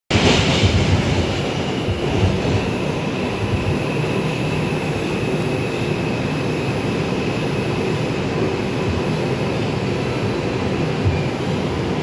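Interior of an R142 subway car running: a steady rumble of wheels and running gear, with a faint high whine over it.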